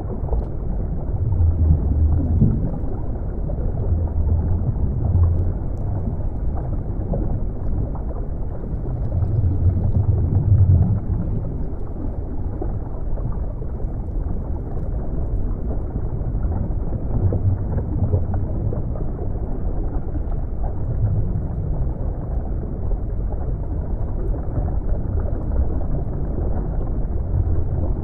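Underwater ambience: a deep, muffled rush of moving water, all low in pitch with nothing bright above it, swelling and easing every few seconds.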